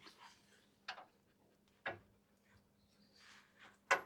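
Three sharp metallic clicks of sockets and hand tools being picked up and set down while a 24 mm socket is searched for, the loudest near the end.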